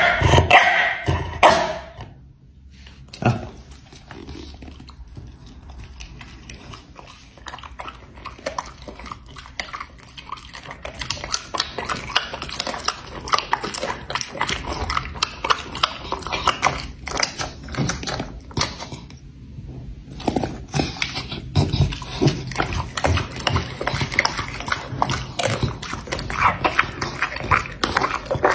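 A dog's wet mouth sounds: soft lip-licking and smacking, few at first, then from about ten seconds in a dense run of quick smacks and clicks that grows louder toward the end.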